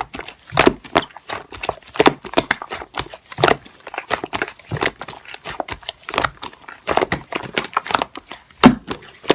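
Slime being pressed, stretched and poked by hand: an irregular run of sticky clicks, pops and crackles.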